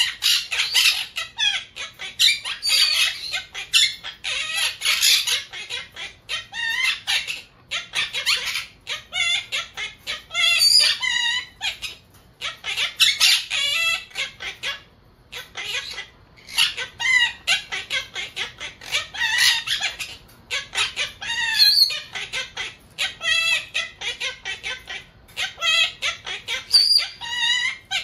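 Monk parakeets chattering and squawking in rapid, near-continuous runs of short, warbling calls, with a few brief pauses.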